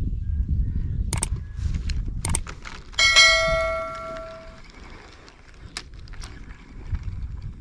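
Subscribe-button animation sound effect: a few sharp mouse clicks, then a bright bell ding about three seconds in that rings out for about a second and a half. Low wind rumble on the microphone underneath.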